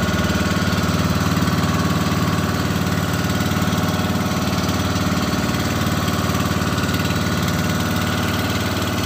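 A small engine running steadily at idle, an even unbroken drone.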